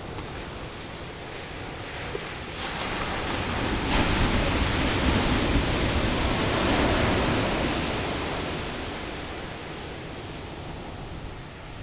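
Ocean surf breaking on a beach: a steady wash of noise that swells as a wave crashes, loudest from about four to seven seconds in, then dies back down.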